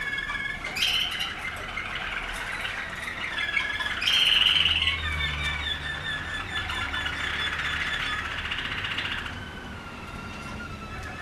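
Caged domestic canaries singing continuously in long rolling trills and warbles, with the loudest burst about four seconds in.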